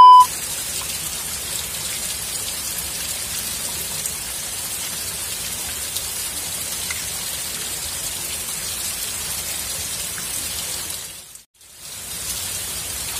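Steady rush of flowing river water, an even hiss with no breaks. It opens with a short loud beep and drops out briefly near the end.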